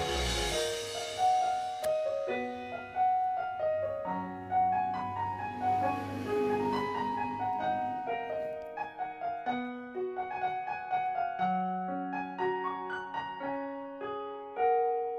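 Background piano music: a melody of notes, each struck sharply and left to fade.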